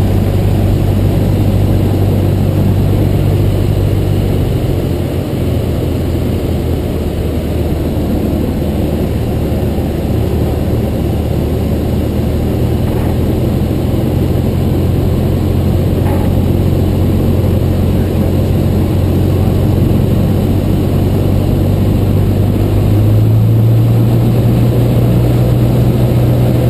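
Cessna 150's four-cylinder Continental O-200 engine and propeller droning steadily, heard inside the cabin. The engine note shifts about four seconds in, then rises and gets a little louder near the end.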